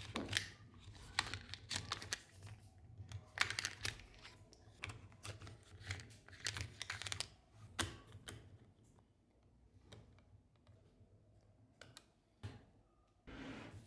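Small magnetic balls clicking and snapping together in quick clusters as they are handled and joined. The clicks are dense at first and thin out after about eight seconds.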